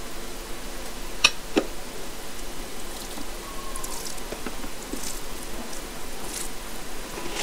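Fingers squishing and mixing rice with fish curry on a plate, with faint small wet clicks. Two sharp clinks of a ceramic dish come about a second and a half in.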